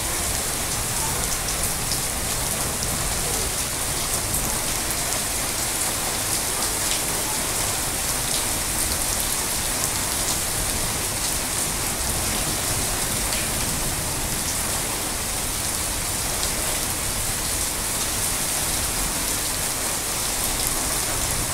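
Heavy rain falling steadily on tree leaves and the ground: a dense, even hiss flecked with the fine ticks of single drops.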